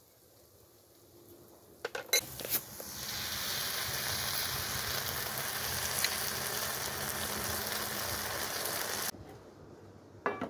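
Walnuts and dried fruit sizzling in hot oil in a metal pan. It starts after a few sharp clinks about two seconds in, runs steadily, and cuts off suddenly near the end. A brief metallic clatter follows just before the end.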